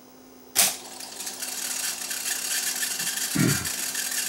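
A Technics RS-676 cassette deck's transport key clicks down sharply about half a second in. The deck's tape mechanism then runs with a steady whirring hiss, with a soft thump near the end.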